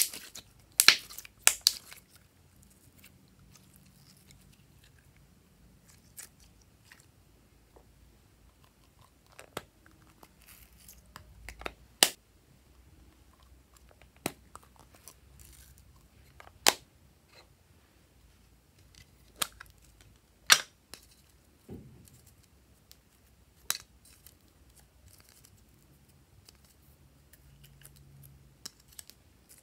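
Close-up handling sounds: glossy slime squished and popping under the fingers, with a quick run of sharp pops in the first two seconds, then scattered sharp plastic clicks and taps, every few seconds, as small plastic slime cases and a clear plastic stencil lid are opened and handled.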